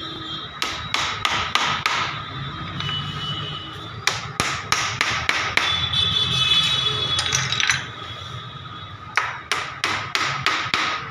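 Hammer blows in carpentry work, struck in three quick runs of repeated strikes with short pauses between them.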